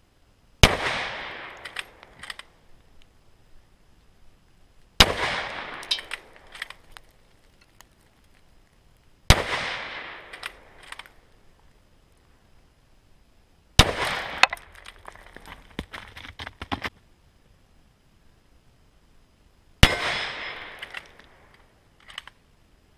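K98k Mauser bolt-action rifle firing 8mm Mauser: five single shots about four to six seconds apart, each trailing off in a long echo with a few short clicks after it.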